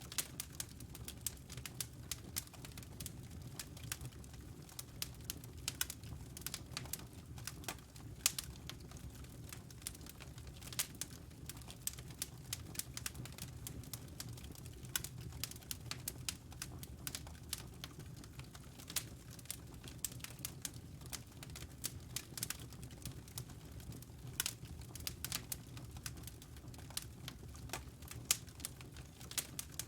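Wood fire burning in a fireplace: logs crackling with frequent irregular sharp pops and snaps over a soft, steady low rumble of the flames.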